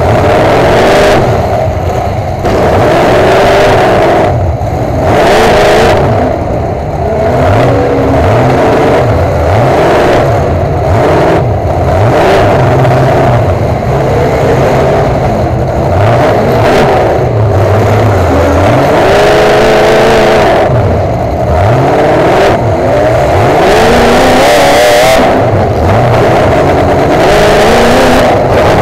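Demolition derby truck's engine heard from inside the cab, revving hard, its pitch rising and falling over and over with brief drops between the revs.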